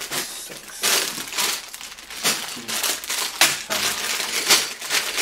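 Plastic bags of LEGO bricks crinkling in a string of irregular rustles as they are lifted out of the box and set down, the loose bricks inside rattling.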